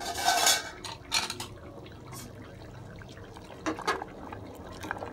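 A ladle stirring cooked chana dal, potato and pumpkin greens in their liquid inside an aluminium pressure cooker: the liquid sloshes, and the ladle knocks against the pot a few times.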